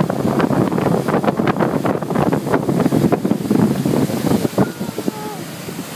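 Wind buffeting the microphone on a moving wakeboard boat, over the rush of water from the boat's wake. The buffeting eases off about three-quarters of the way through.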